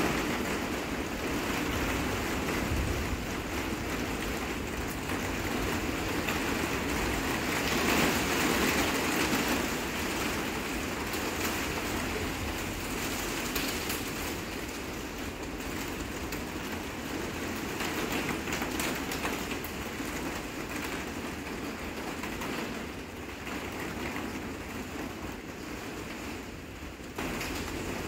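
Steady rain falling on a greenhouse roof, heard from inside the greenhouse, swelling a little about a third of the way in.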